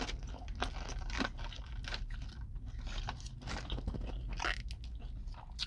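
Close mouth sounds of a person biting into and chewing a crispy fried fish sandwich: soft, irregular crunches and smacks.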